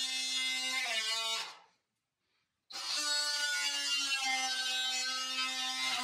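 Background music of held notes changing pitch in steps. It cuts out to dead silence about a second and a half in, and comes back about a second later.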